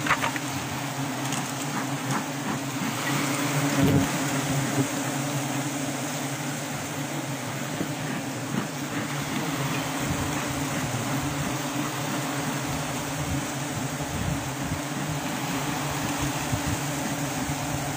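Steady buzzing hum of a large mass of honeybees swarming over an exposed comb, with a low knock about four seconds in.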